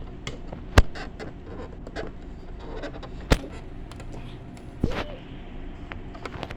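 Handling noise: three sharp clicks or knocks, about a second in, a little past three seconds and near five seconds, with light scratching and tapping in between over a steady low hum.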